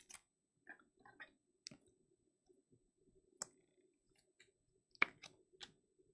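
Baseball cards being handled and slipped into rigid plastic toploaders: scattered light clicks and taps, the sharpest about five seconds in.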